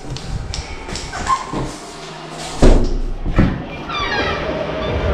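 A door handle pressed and a door opened, then handling noise and footsteps with a loud thump about two and a half seconds in and a quick run of squeaks near four seconds. After that, the steady background noise of a sports hall.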